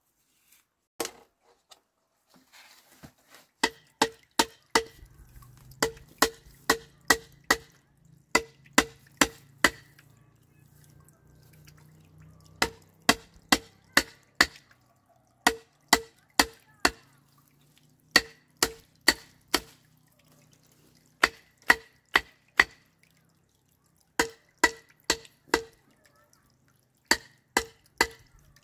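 Hammer blows on fence stakes, in quick bursts of four to six strikes about three a second with short pauses between; each blow gives a sharp knock with a short ringing pitch.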